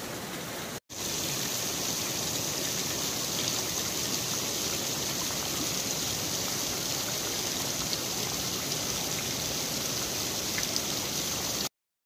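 Sulphur-spring water dripping and showering down in drops from a rock overhang: a steady hiss and patter of falling water with a few faint drip ticks. The sound drops out to dead silence briefly about a second in and again near the end.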